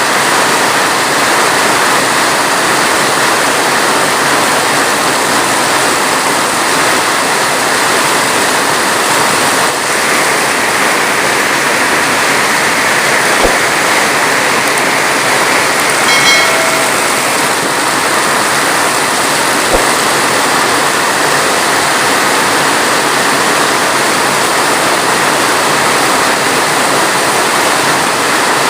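Heavy rain falling as a steady, even hiss, with no thunder. A brief pitched sound comes about sixteen seconds in, and there are a couple of faint clicks.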